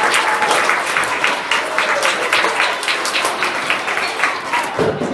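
Audience applauding with dense, loud clapping that thins out near the end.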